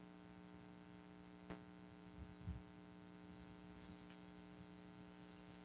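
Near silence: a steady low electrical hum, with one faint click about a second and a half in and a soft low thump or two shortly after.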